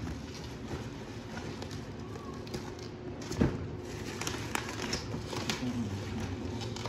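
Bubble wrap crinkling and crackling as it is handled and pulled off a package, with one louder knock about halfway through.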